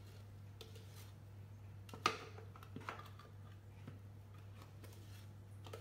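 Light scraping and a few soft knocks of a spatula working sorbet out of a stainless-steel Thermomix TM5 mixing bowl into a plastic box, with one sharper knock about two seconds in.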